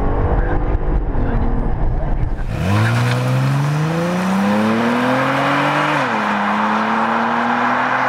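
V6 sports sedan engine and exhaust, heard first from inside the cabin over a heavy low road rumble, then from behind as the car pulls away under hard acceleration. The engine note climbs steadily, drops at an upshift about six seconds in, then starts rising again.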